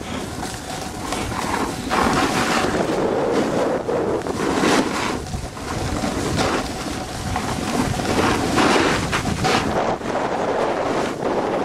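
Wind rushing over the microphone of a snowboarder's camera while riding downhill, with the hiss and scrape of the snowboard's edges on the snow coming in surges every second or two.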